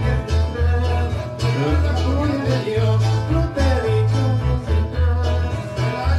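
Live Latin Catholic praise music: an electronic keyboard with a deep bass line in long held notes and a strummed acoustic guitar playing an instrumental passage with a wavering melody line.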